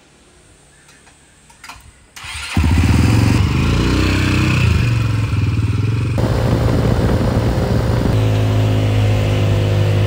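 A three-wheeled motorcycle's engine starts about two seconds in and then runs loud and steady as the trike rides off, its note shifting a couple of times.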